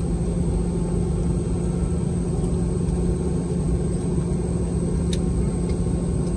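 Steady low rumble and constant hum of a Boeing 717's passenger cabin on the ground after landing, with a faint click about five seconds in.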